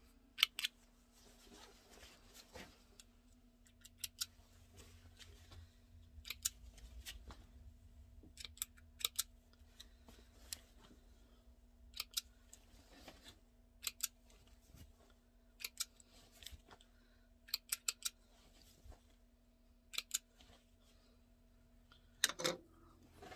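Pink spring thread snips clicking shut many times at irregular intervals, often two quick snips together, as the threads joining sewn patchwork pieces are cut. A faint steady hum and soft fabric rustling run underneath.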